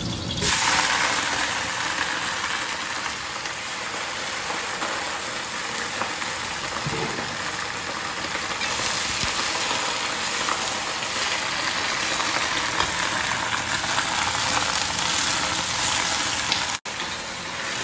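Green vegetables stir-frying in hot oil, a steady sizzle that grows louder about half a second in.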